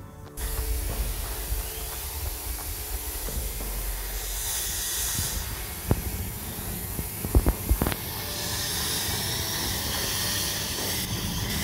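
Dental suction tube hissing steadily at a child's mouth during treatment, with a few sharp clicks about halfway through.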